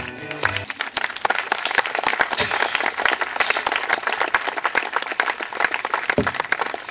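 Crowd applauding with dense clapping, starting as music stops within the first second.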